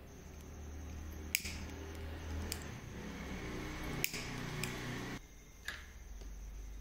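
Red disposable flint lighter being struck, with a few sharp clicks of the thumb wheel, and its flame hissing for a few seconds before cutting off abruptly a little after five seconds in.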